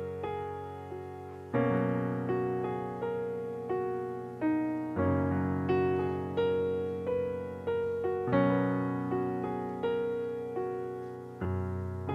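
Solo piano background music: a melody of struck single notes over low bass chords that change about every three seconds.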